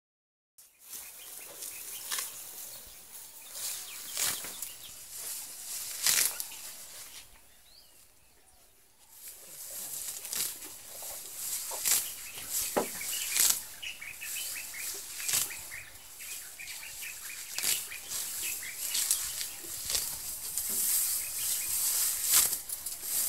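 Sri Lankan elephant tearing up grass with its trunk as it feeds: irregular crisp rips and rustles every second or two, with a quieter lull about eight seconds in.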